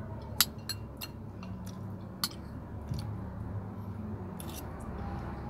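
A metal spoon clicking against a ceramic bowl several times, sharpest about half a second in, while a person eats and chews rice, over a steady low hum.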